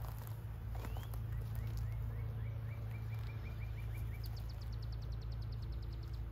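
Honey bees humming steadily around an open hive as a frame covered in bees is held up. A bird sings through it: a rising whistle, then a run of short rising notes that speed up, ending in a fast high trill.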